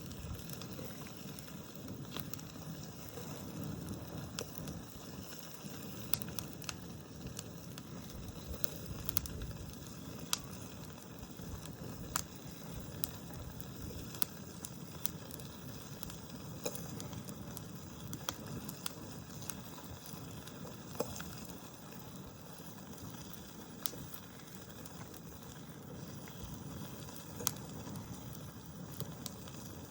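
Campfire burning in a fire pit: a steady low rush of flames with irregular sharp crackles and pops throughout.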